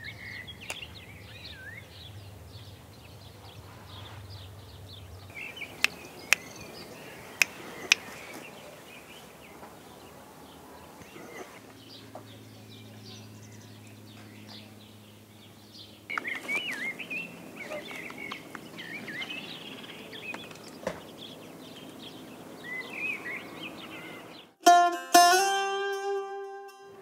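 Birds chirping over a steady outdoor background, with four sharp clicks between about six and eight seconds in. Near the end a short, loud burst of plucked-string music comes in.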